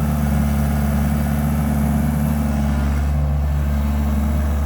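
Case 1840 skid steer's diesel engine running steadily at a constant speed.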